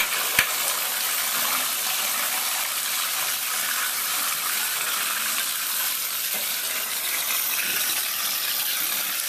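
Bathtub faucet running steadily, the water pouring over a wet cat's fur and into the tub, with a sharp click about half a second in.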